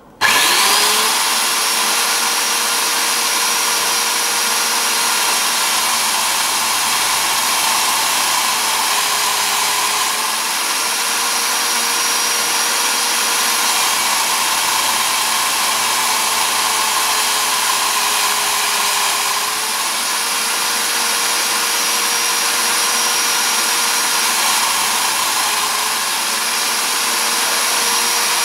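Old Black & Decker electric drill switched on and running steadily at a slowed speed, driving a chuck through a flexible shaft while a 3.7 mm tapping drill pecks into a phosphor bronze bush. The motor's pitch sags slightly twice under the cutting load and recovers.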